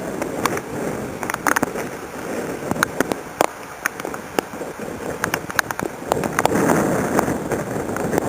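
Storm wind gusting over the microphone, easing after the start and building again about two-thirds of the way through. Scattered sharp clicks and taps come at irregular moments throughout.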